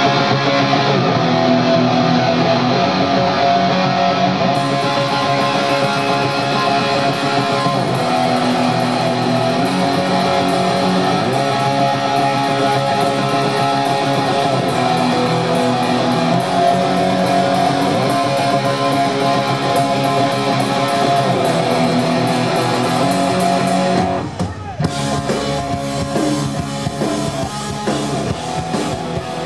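Live heavy rock band playing loud: electric guitar over a drum kit through the stage PA. About 24 seconds in the music drops out briefly, then comes back a little quieter.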